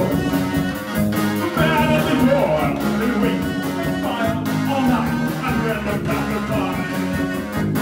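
Live synth-punk band playing a song: a singer's vocals over keyboard synth and electric guitar.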